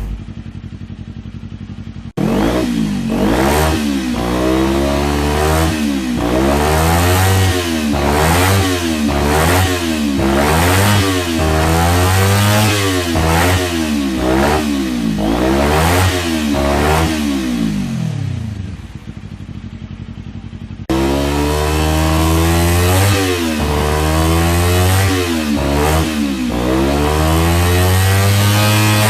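Kawasaki Ninja 250 parallel-twin engine and exhaust, idling and then free-revved at a standstill in quick throttle blips, the pitch rising and falling with each blip. It drops back toward idle, there is a sudden cut, and the revving starts again.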